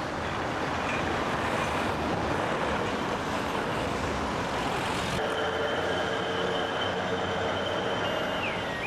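A Lisbon street tram rumbling along its street rails. After an abrupt change about five seconds in, a steady high squeal of tram wheels on the curving track takes over, and near the end a squeal dips and rises in pitch.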